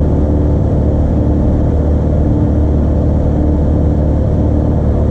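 Light aircraft's piston engine and propeller droning steadily in flight, heard from inside the cockpit, with a deep hum under a few steady higher tones.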